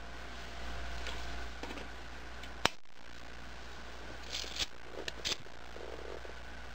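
Handling of a copper wire coil and a clamp-on current probe, with a single sharp click a little before the middle. About two-thirds of the way through comes a quick cluster of small clicks as a lighter is struck and lit to heat a copper-to-steel thermocouple junction.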